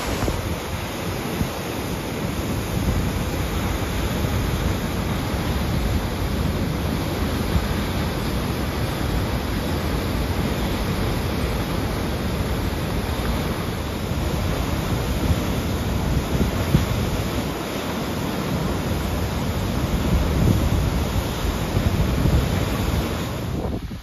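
Waterfall pouring into a rocky gorge: a steady rushing roar of falling water, with wind buffeting the microphone.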